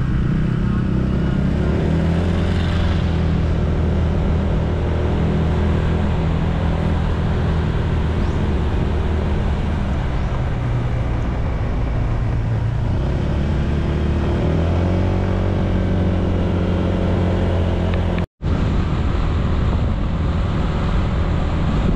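Honda ADV160 scooter's single-cylinder engine running on the move, its pitch dipping and rising again as the speed changes. The sound cuts out for a split second about eighteen seconds in.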